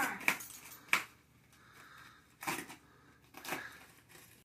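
Cardboard box being stabbed and cut open with a blade: about five short crunching scrapes of the blade in the cardboard, with pauses between them.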